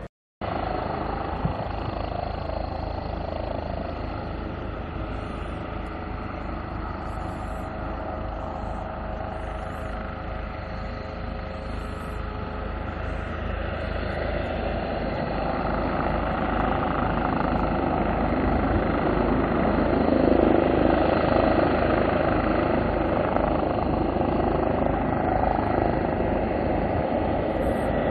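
Airbus H145M helicopter in flight: an even rotor beat under a steady turbine tone. It grows louder from about halfway through and peaks about two-thirds of the way in. There is a brief dropout in the sound just at the start.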